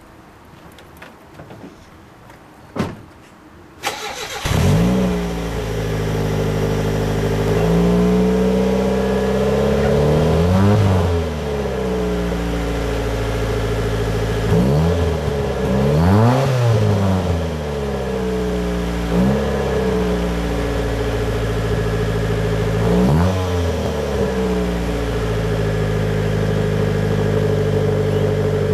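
Mitsubishi Lancer engine heard at the exhaust tailpipe: after a sharp knock about three seconds in, the engine starts about four seconds in and settles into a steady idle. It is blipped with about five short revs that rise and fall quickly, between stretches of idle.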